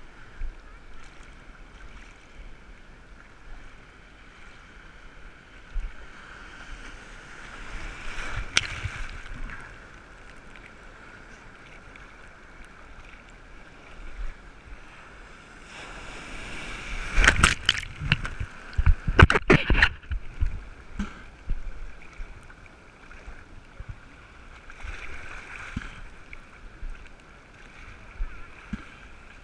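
Seawater sloshing and splashing close against a waterproof action-camera housing held at the waterline while a wading angler is pulled through the surf. Louder splashes come about a quarter of the way in, and a loud cluster of splashes and knocks a little past halfway.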